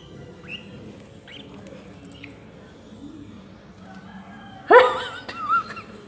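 Small green pet parrots chirping a few short, faint times, then a loud, rising squawk near the end with a shorter wobbling call after it.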